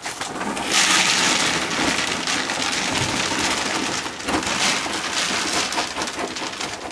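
Dry cat food being poured into a storage container: a steady pattering pour of kibble that starts about a second in and runs for several seconds, easing off near the end.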